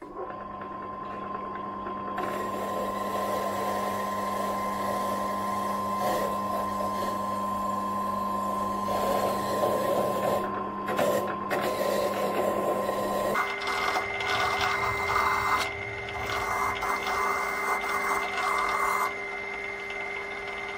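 Pillar drill switched on and running with a wire cup brush in the chuck, the brush scrubbing paint and rust off a metal bunk-frame bar pressed against it: a steady motor hum under a harsh scraping hiss. The hum steps up in pitch about two-thirds of the way through.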